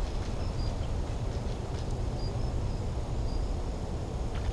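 Dusk outdoor ambience: insects chirping in short, high notes every so often, over a steady low rumble.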